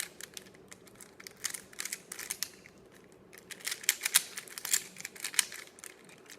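Rubik's Cube being turned by hand, its plastic layers clicking in quick flurries with a short pause about halfway through: the last moves of a solve.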